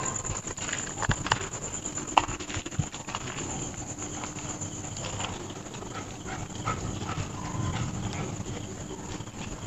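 A dog barking several times, with the sharpest sounds in the first few seconds.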